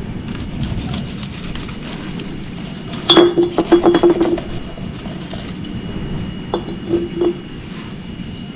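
Quick runs of ringing metallic clinks: one run of about a second, then a shorter one a few seconds later, over a steady background hiss.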